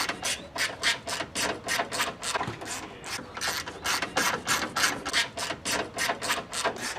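Ratchet wrench clicking steadily, about four clicks a second, as bolts on the radiator support brackets are worked loose by hand.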